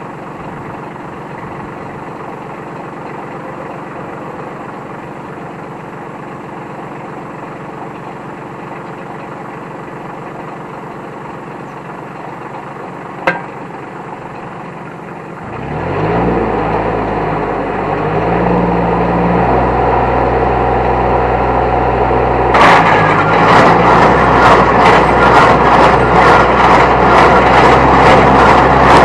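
The 30-horsepower New Holland T1510 tractor's engine idles steadily, with one sharp click about 13 seconds in. About halfway through it picks up and runs louder and heavier. Near the end a fast, even clatter of strikes starts over the engine, as the square baler is set working.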